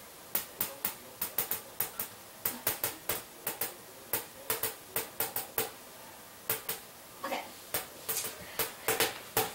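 Irregular sharp clicks and taps, a few a second in short clusters with brief pauses between them.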